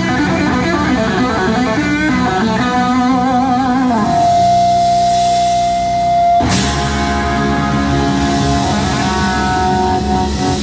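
Live rock band playing: an electric guitar solo of bent, wavering notes over bass guitar and drums, then one note held for about two seconds. A crash about six seconds in as the full band comes back in.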